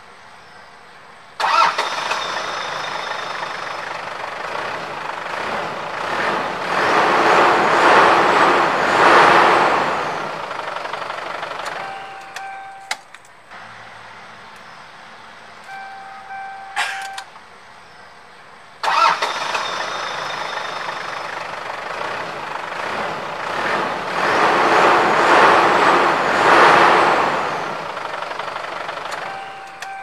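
A car engine is started with the key. It comes in suddenly about a second and a half in, runs for about ten seconds, growing louder in the middle, then dies away. After a short steady tone and a click, the same start plays again just before twenty seconds in.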